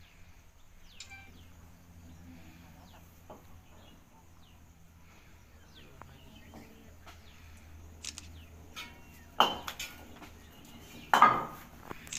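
Metal snake hook clattering and scraping on a hard floor, with two loud scrapes about nine and eleven seconds in. Faint bird chirps come before them.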